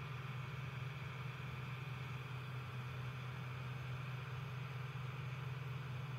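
Claas Dominator 58 combine harvester running steadily: a constant low engine drone with an even hiss over it, no change in speed.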